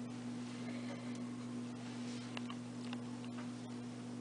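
Quiet room tone: a steady low electrical hum with faint, scattered soft ticks.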